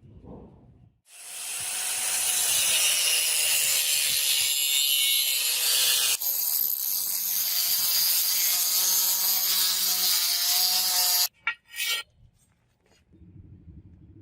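Power tool grinding metal in a steady, loud hissing run, with a sharp break about six seconds in. A few short bursts follow near the end.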